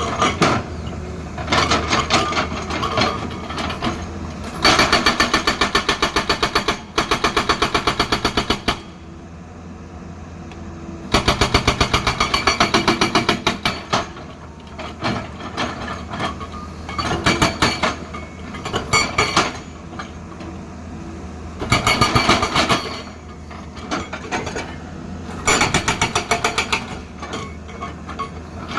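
Excavator-mounted hydraulic rock breaker hammering hard stone in rapid bursts of blows lasting a second or two each, several times over, with the diesel engine running steadily underneath.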